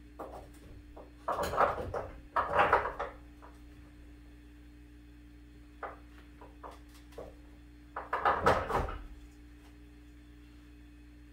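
Handling noises from work in a car's engine bay: three short bursts of clattering and knocking, the loudest near the end, with a few faint clicks between them, over a steady low hum.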